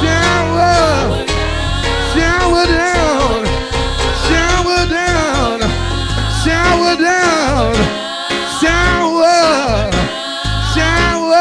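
Gospel praise team of several singers on microphones singing a worship song in long, sliding sung lines over instrumental backing with a heavy bass.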